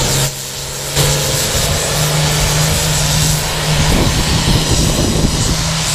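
Pulling tractor's diesel engine running hard at full throttle under load as it drags the weight sled, a loud steady drone. The level dips briefly near the start, then holds steady.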